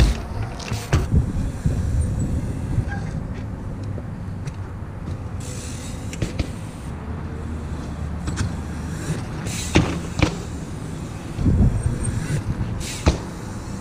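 A trials mountain bike being ridden, with several sharp knocks and thuds of the bike hopping and landing and a heavier thump near the end. A steady rumble of road traffic runs underneath.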